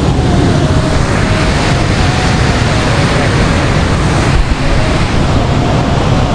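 Steady rush of a swollen mountain river running high after rain, a dense, even noise with no breaks.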